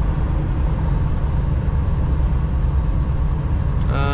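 Semi truck's diesel engine running steadily, heard from inside the cab with low road rumble as the truck turns. Near the end a short pitched, voice-like sound begins.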